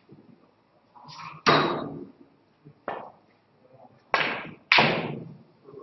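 Snooker balls knocking on the table during a shot: four sharp clacks, one about a second and a half in (the loudest), one near three seconds, and two close together between four and five seconds, each trailing off briefly.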